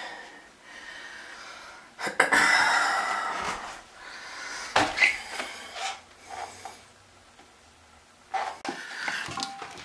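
Heavy breathing and handling noises as a new porcelain toilet bowl is lifted and set in place. The loudest, a long breathy rush, comes about two seconds in, with shorter bursts around five seconds and near the end.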